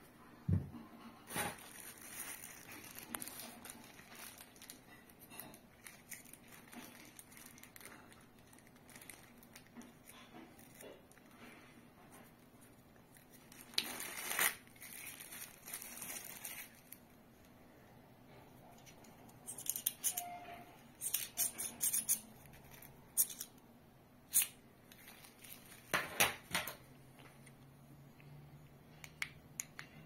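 Scattered clicks and knocks from handling a small aluminum camera tripod and its plastic fittings, with several short bursts of plastic-bag crinkling and rustling, the loudest about halfway through and again near the end.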